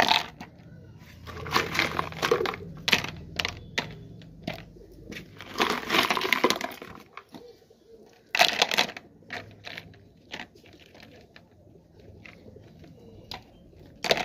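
Handfuls of stone chips clattering and rattling into small plastic flower pots, in several separate bouts a few seconds apart, laying a drainage layer in the bottom of each pot.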